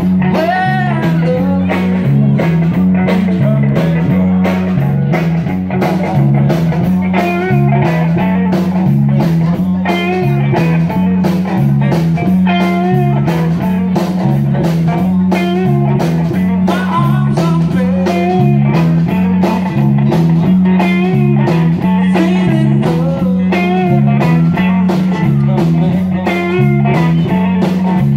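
Live band playing an instrumental blues-rock passage: a guitar lead with bent, wavering notes over a repeating bass line and a steady drum beat.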